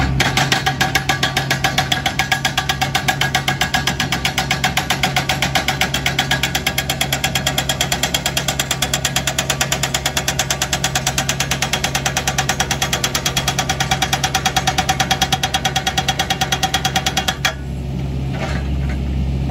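An excavator-mounted hydraulic breaker hammers a big, very hard limestone rock in rapid, even blows, over the steady running of the John Deere 60G excavator's diesel engine. The hammering stops suddenly about two seconds before the end, leaving the engine running.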